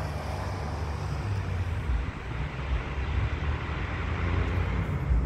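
Low, steady rumble of road traffic as cars and a fire engine drive along the road; no siren is heard.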